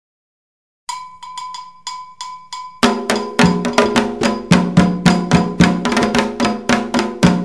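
Silence, then about a second in a ringing metal bell begins a struck rhythmic pattern for Candomblé music; about two seconds later hand drums come in loud and keep a fast, steady beat with the bell.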